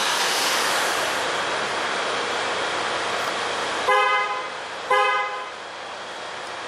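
Car horn on a Kia Sorento sounding two short toots about a second apart, set off by a remote-start alarm, over a steady rushing noise.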